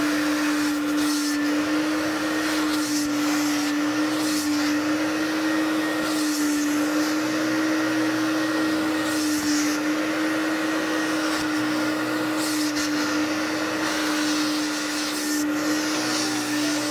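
Vacuum running steadily through a hose with a nozzle worked over car floor carpet: a constant motor tone under suction hiss, which brightens every few seconds as the nozzle moves and seals on the carpet.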